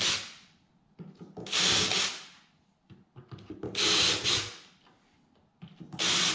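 Cordless drill boring pilot holes for the speaker screws into a speaker box, running in short bursts of about a second each. One burst ends just after the start, and three more follow about two seconds apart.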